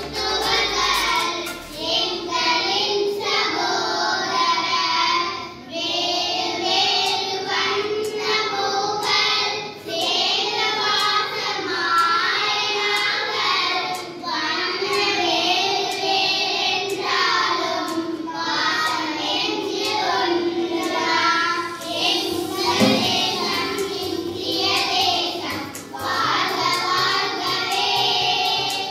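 A group of children singing a song together into a microphone, phrase by phrase with brief pauses between lines.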